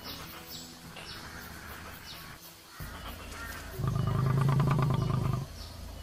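A lion's deep roar: one long call of about a second and a half, starting about four seconds in.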